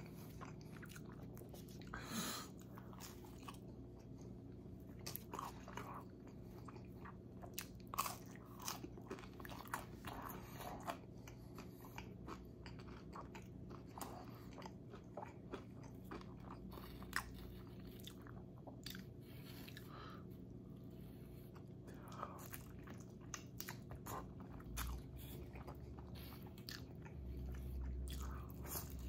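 Close-miked eating of pizza and chicken wings: irregular bites, crunches and wet chewing, with a steady low hum underneath.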